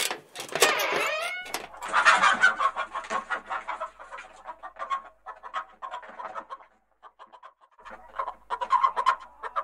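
Chicken-like clucking calls in short choppy runs, thinning out and nearly stopping in the middle, then picking up again near the end.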